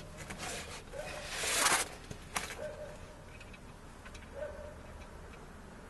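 Scraping and rustling of hands and metal parts as a tie rod end is worked into the steering knuckle of a Jeep YJ, with a louder scrape about a second and a half in and a sharp click just after.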